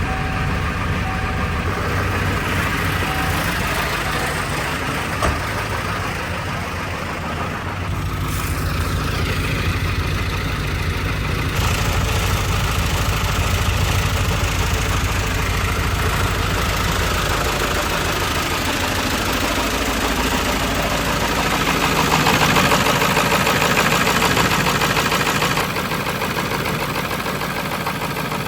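A truck engine running steadily. Its tone shifts partway through, and it gets louder for a few seconds near the end.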